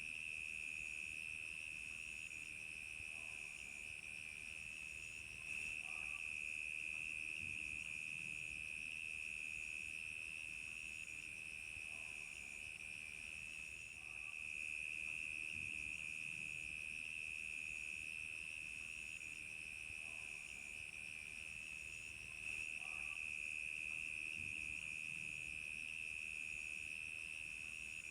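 A chorus of crickets chirping steadily in a continuous high trill, with short higher-pitched chirps repeating at an even pace above it.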